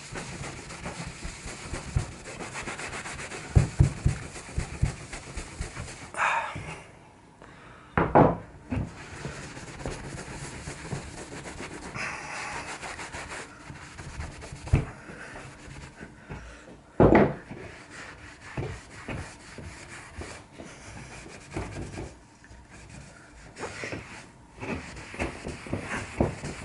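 Cotton cloth rubbing back and forth over a charred, oiled softwood board, buffing up an oil coat that has gone dull. A few sharp knocks, the loudest about 4, 8 and 17 seconds in.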